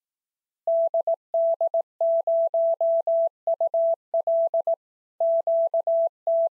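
Morse code keyed as a single clean, mid-pitched beep tone in short and long elements, spelling out the amateur radio callsign DD0UL followed by QTC.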